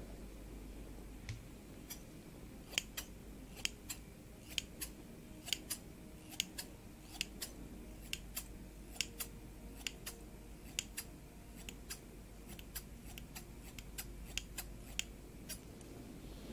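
Metal hairdressing scissors snipping at a lock of wig hair close to the microphone: a long run of crisp, sharp snips, irregularly spaced at about two to three a second.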